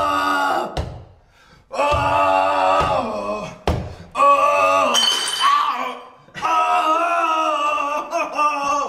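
A voice in long, drawn-out sung phrases, four of them with short gaps between, holding each note. A sharp knock comes just before the second gap.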